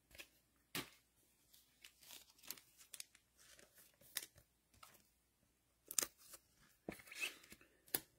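Trading cards and their plastic and foil packaging being handled, giving faint scattered rustles and taps with a few sharper snaps.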